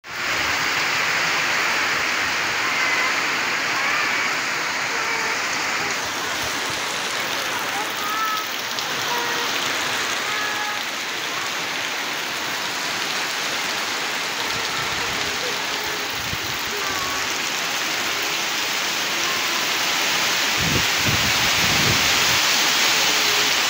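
Heavy rain falling steadily: a loud, dense, even hiss of a downpour.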